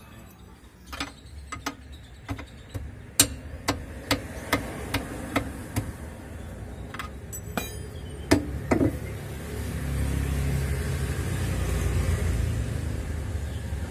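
Socket wrench turning the nut on a rear stabilizer link of a Toyota Avanza, giving sharp metallic clicks about two a second for a few seconds and a few scattered knocks after. From about ten seconds in, a vehicle engine runs steadily in the background.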